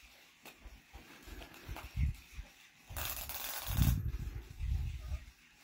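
A small dog playing with a toy on a ribbon on carpet: soft thumps and scuffles, with a rustle about three seconds in that lasts about a second.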